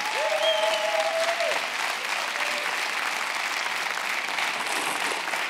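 Studio audience applauding steadily, with one long shout of a voice over it during the first second and a half.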